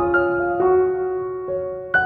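Background piano music: a slow melody of single struck notes that ring on and overlap, with one longer held note in the middle.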